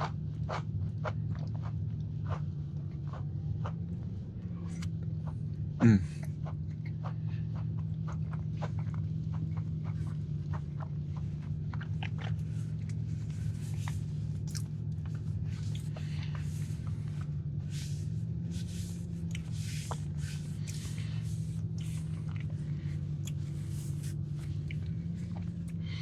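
Chewing and mouth sounds of a person eating a Crumbl semi-sweet chocolate chunk cookie: scattered small clicks and smacks over a steady low hum. There is one brief louder sound about six seconds in.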